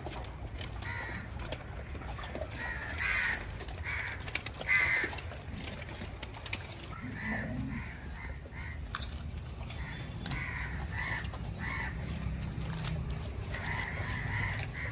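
Short, repeated animal calls, coming singly and in pairs every second or two, over a steady low background rumble.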